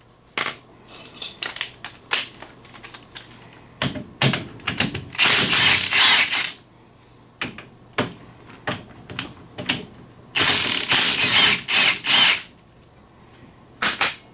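Cordless impact wrench hammering on the brake caliper bolts to loosen them, in two rattling bursts of a second or two each, about five seconds in and again about ten seconds in. Metallic clicks and knocks of tool and parts fall between the bursts.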